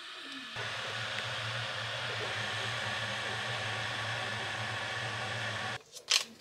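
BALMUDA electric kettle heating water: a steady hiss with a low hum that cuts off suddenly near the end. A couple of sharp crinkles of the foil tea-bag packet being handled follow.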